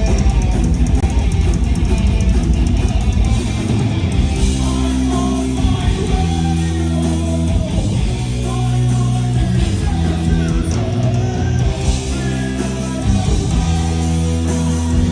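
Heavy metal band playing live: distorted electric guitar riffs over bass and drums, loud and dense.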